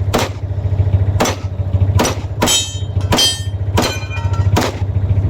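A rapid string of handgun shots, about eight in five seconds at an uneven pace, some followed by a short metallic ring. A vehicle engine idles underneath as a steady low hum.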